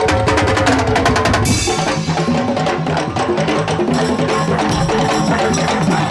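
Madurese daul (tong-tong) ensemble playing: a fast, steady beat of drums and wooden percussion under a pitched melody, with a crash about a second and a half in.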